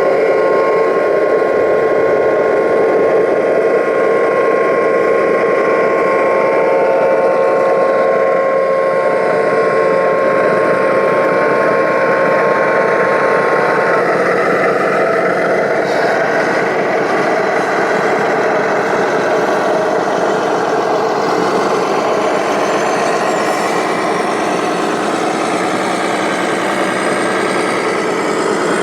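Radio-controlled model vehicle running steadily, with a whine of steady tones that fades about halfway through.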